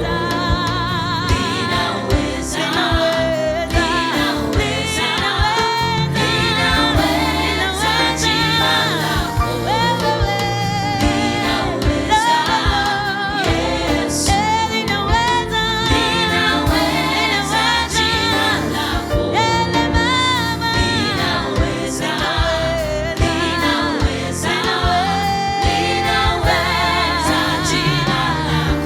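Gospel choir singing a praise song with vibrato-rich voices over band accompaniment and drums.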